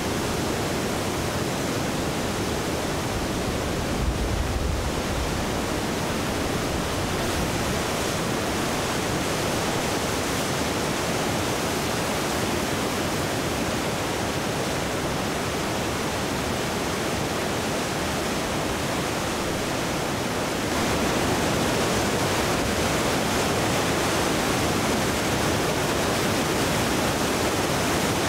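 Flood-swollen Winooski River rushing over rapids: a steady, dense rush of churning muddy water. A brief low bump about four seconds in, and the rush grows louder about three quarters of the way through.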